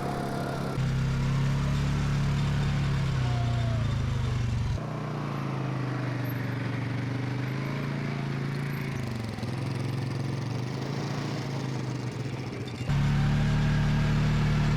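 A vehicle engine running steadily, its pitch dipping and rising as it slows and speeds up. The level jumps abruptly a few times.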